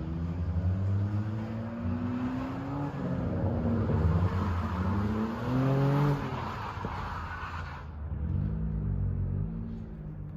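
Car engine revving, its pitch rising and falling several times over a steady low rumble.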